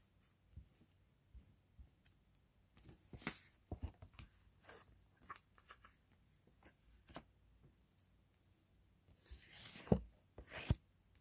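Tarot cards being handled: faint scattered taps and rustles of card stock, then a louder rustle and a sharp snap near the end as a hand comes close to the microphone.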